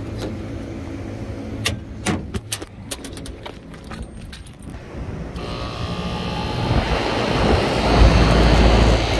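A run of clicks and rattles as the rooftop unit's electrical disconnect is opened and switched on. Then, about five seconds in, the condenser fan, newly wired with its capacitor, starts and runs, a rush of air that grows louder toward the end.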